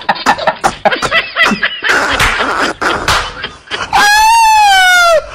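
A person's voice: quick, choppy laughing and chatter, then about four seconds in a loud, long, high-pitched shriek that rises a little and then falls away.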